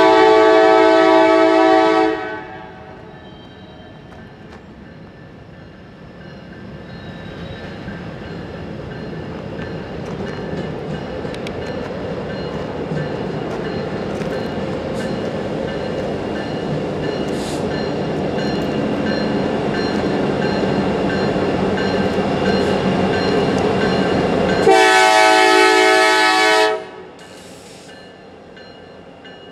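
Diesel freight locomotive air horn sounding a chord of several notes for about two seconds. Then the rumble of an approaching freight train grows slowly louder. About 25 seconds in, a second two-second horn blast ends abruptly.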